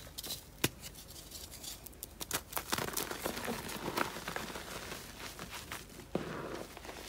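Hands crushing and crumbling dried, reformed gym chalk into a bed of loose chalk powder: a run of dry crunches and crackles, thickest in the middle, with one sharp crack about half a second in.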